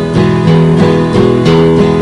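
Background music: guitar chords strummed in a steady rhythm, about three strums a second.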